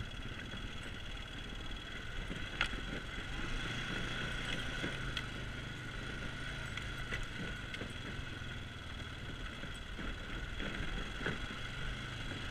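ATV engine running steadily under way over rough ground, a low drone with a steady higher whine above it. A few sharp knocks and rattles from bumps, the loudest about two and a half seconds in.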